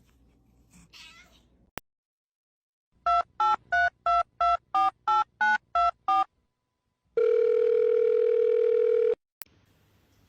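Telephone keypad tones: eleven quick beeps of varying pitch, about three a second. Then one steady two-second ringing tone, the ringback of a call going through.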